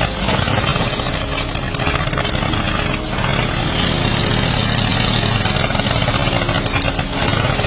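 Miniature construction vehicle running with a steady, continuous engine-like drone.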